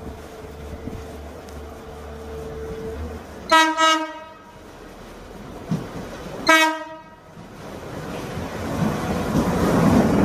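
An Irish Rail 22000 Class diesel multiple unit sounds its horn in two short blasts about three seconds apart as it approaches. Its running noise then rises steadily as it runs into the platform and passes close by.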